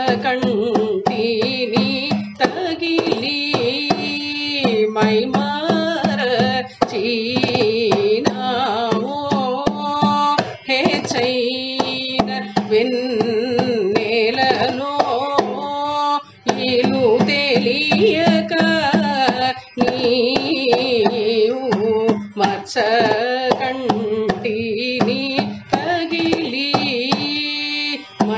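Carnatic music in Surati raga, set to Misra chapu tala: a melody with sliding ornaments over a steady drone, with hand-drum strokes keeping the rhythm.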